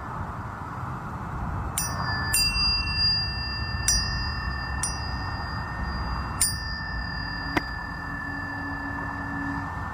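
Tuning forks struck about six times, each strike leaving high, pure tones that ring on and overlap. A lower steady tone comes in near the end.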